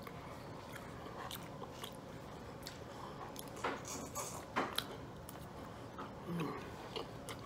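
Close-miked chewing and lip-smacking of a person eating, with scattered wet mouth clicks, and a brief hum about six seconds in.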